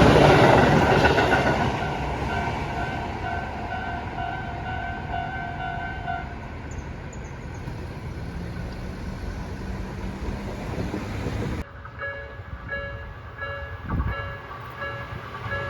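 A Tobu Noda Line train passing a level crossing, its noise loud at first and fading over the first couple of seconds, while the crossing's warning bell rings in an even, repeating ding. After a sudden cut about twelve seconds in, a crossing bell goes on ringing, with a single low thump near the end.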